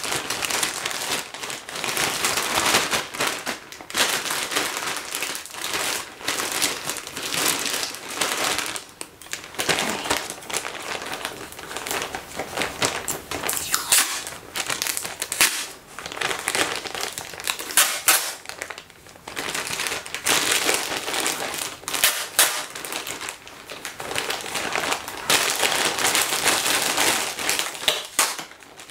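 Plastic postal mailer bag crinkling and rustling as it is handled and folded, with packing tape pulled off its roll and pressed on, giving a few sharp rasps among the crinkling.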